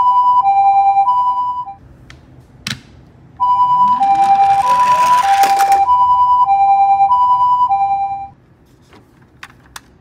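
Toy ambulance's electronic two-tone siren repeating a high-low 'pee-po' pattern, about a note every half second. It breaks off for about a second and a half, then starts again. From about four to six seconds in, a rushing rattle with a rising whine joins it as the die-cast toy ambulance runs down a slope on its wheels.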